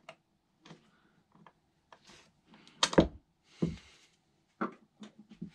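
Scattered clicks, knocks and short scrapes of gloved hands and a red-handled tool working a very tight tyre onto a Xiaomi Mi 1S scooter's 8.5-inch rim, with one louder thump about three seconds in.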